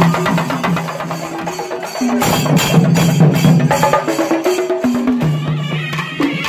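Chenda melam: an ensemble of chenda drums played with sticks in fast, dense rolls. A held droning tone runs under the drumming and steps up and down in pitch.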